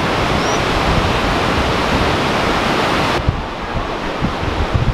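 Waterfall rushing through a narrow rock gorge, a loud, steady hiss of falling water. About three seconds in, the highest hiss drops away sharply and the lower rush goes on, with wind buffeting the microphone.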